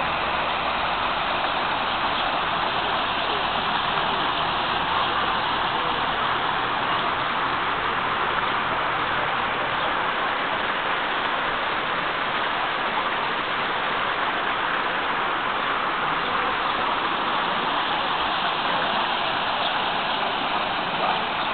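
Water splashing steadily down the small cascades of a rock fountain into its pool.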